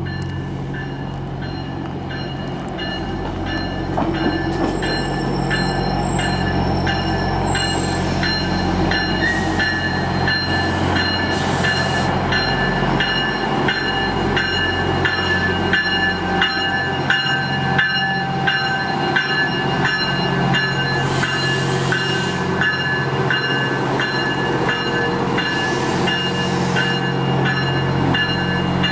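A two-car Budd RDC rail diesel car train rolls slowly past with its underfloor diesel engines running in a steady low hum. Wheels click evenly over rail joints, and a thin high whine runs alongside. The sound grows louder about four seconds in as the cars come alongside.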